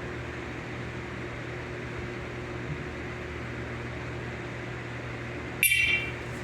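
Steady low background hum; about five and a half seconds in, one short, high-pitched electronic beep from a First Alert SMCO100V-AC smoke and carbon monoxide alarm as its test is started.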